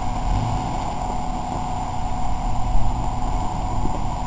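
Off-road SUV's engine running unevenly under load as it tries to climb a steep rocky wash and fails to get up: its tyres have little to grip on the loose dirt.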